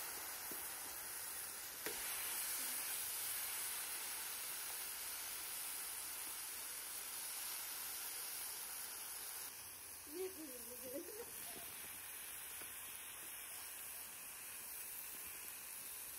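Marinated Angus chuck steaks sizzling on a hot, oiled flat-top griddle: a steady frying hiss.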